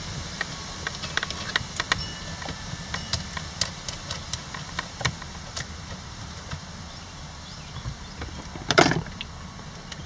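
Scattered small clicks and taps of a steering-wheel retaining nut and washer and plastic wiring connectors being handled on a car's steering column, with a louder brief rattle a little before nine seconds in. A steady low hum runs underneath.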